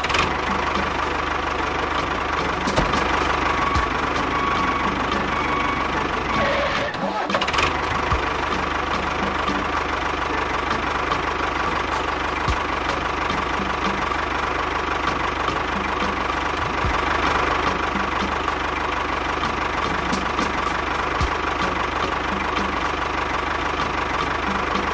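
Tractor engine running steadily with a regular knocking tick over a constant hum, dipping briefly about seven seconds in.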